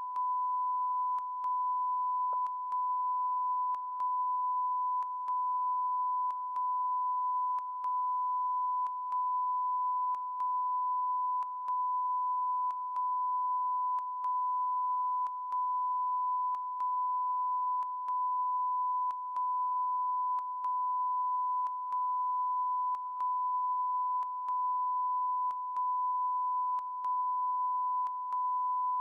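A continuous electronic beep at one steady pitch, the 'never ending beeping noise' of a fault in a TV news broadcast's sound. The tone drops out very briefly about every second and a quarter, with a faint click at each break.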